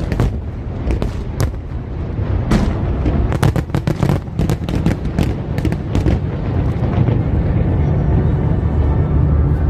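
Fireworks going off: a rapid series of sharp bangs and crackles for about six seconds, then the bangs stop.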